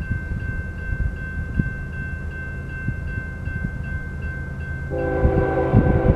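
Railroad crossing bell ringing fast, about three dings a second, over a low rumble. About five seconds in, the approaching train's lead locomotive, a GE ES44C4, starts sounding its multi-chime air horn, which takes over as the loudest sound.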